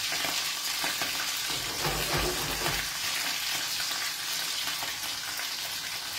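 Oil sizzling steadily in a skillet with garlic, chili and anchovy frying in it.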